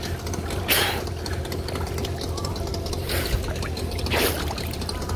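Water sloshing and splashing right at the microphone held at the surface, with three louder splashes: about a second in, at about three seconds, and just after four. Underneath, a small boat's outboard motor runs low and steady.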